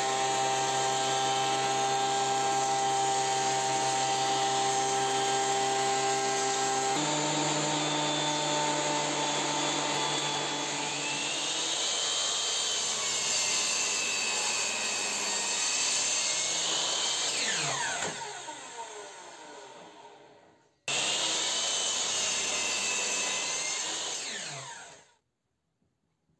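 Electric woodworking power tool running at a steady speed, in a few spliced clips. Its motor winds down with a falling whine about two-thirds of the way through, and again just before the sound stops near the end.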